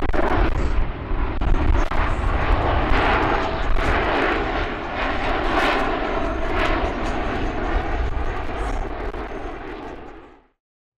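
Jet noise from a pair of Blue Angels F/A-18 Super Hornets, each with twin F414 turbofan engines, making a pass. The noise is loud and steady and fades over the last second or two before cutting off suddenly.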